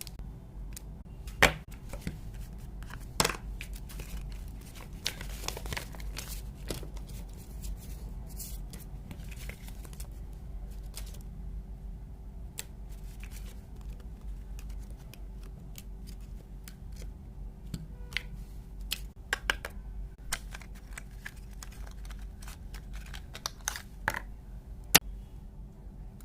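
Wireless-earbud packaging being opened by hand: tearing and crinkling of the wrapping, with scattered sharp clicks and taps, the loudest about a second and a half in, about three seconds in and near the end.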